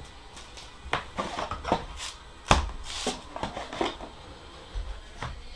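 Irregular clicks and knocks of hard computer parts and case pieces being handled and set down, the loudest knock about halfway through.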